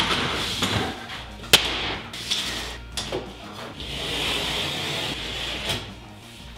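Several sharp knocks as a metal drywall T-square and tools are handled on a sheet of drywall, the loudest about a second and a half in. From about four seconds in, a utility knife scrapes steadily along the T-square, scoring the drywall's paper face.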